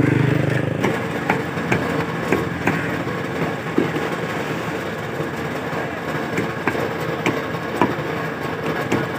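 Cleaver chopping raw chicken on a thick wooden chopping stump: sharp knocks at uneven spacing, about one or two a second, over a steady engine hum.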